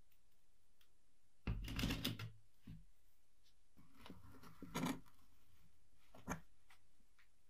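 A rusty metal desk calendar set down on a wooden table with a thud and a short rattle about one and a half seconds in. Around four seconds in, a metal blade scrapes and taps against its rusty base, and there is one sharp click of pliers against the metal near the six-second mark.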